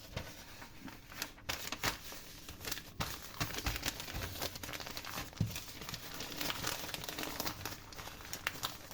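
Parchment paper crinkling and rustling in irregular crackles as squares of it are handled and folded closed over mashed potato to wrap a compress.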